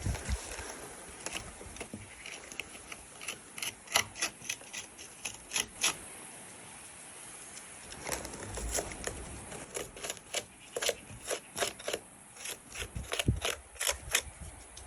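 Dirty plastic NERF blaster being handled: irregular clicks and taps with light rubbing and scraping, and a quieter stretch about six to eight seconds in.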